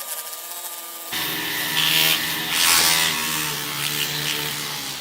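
Small power tool grinding and sanding against a silver spoon, a steady abrasive rasp over a motor hum that gets lower and fuller about a second in.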